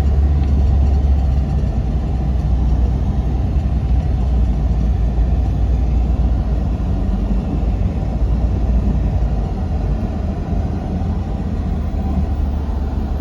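Steady low drone of a tour vehicle's engine and road noise, heard from inside the moving vehicle.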